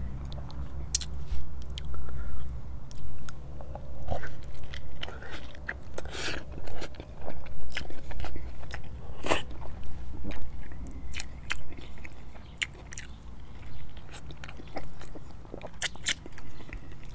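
A person biting into and chewing a cheesy chicken taco with jalapeño close to the microphone: a steady run of short mouth clicks and bites.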